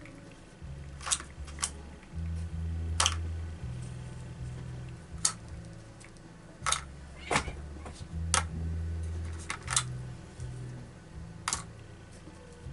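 Sharp clicks and taps, about ten, coming irregularly, over low humming tones that change pitch in steps.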